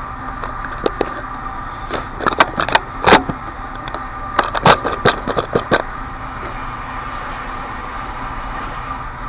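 Lock picks clicking and tapping against a Mul-T-Lock dimple padlock as they are worked into its keyway, in two quick clusters of sharp metal clicks. A steady background hum with a faint held tone runs underneath.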